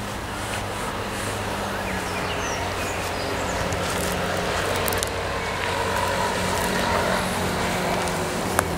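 Road traffic: a steady low engine hum and rumble that grows gradually louder, with a sharp click near the end.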